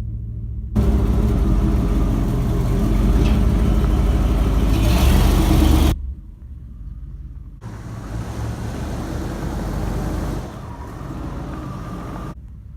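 Ford F-250's 7.5-litre 460 big-block V8 running. It gets much louder about a second in and holds there until it cuts off sharply near the middle, then comes back quieter.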